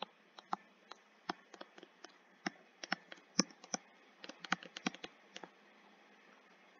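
Stylus tip tapping and clicking on a tablet screen while handwriting: a run of irregular light clicks that stops about five and a half seconds in.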